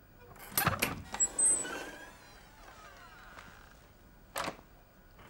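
Front-door hardware: a metallic clatter about half a second in, with a short ringing, creaking tail, as the letterbox flap and door are worked. A single sharp click follows at about four and a half seconds.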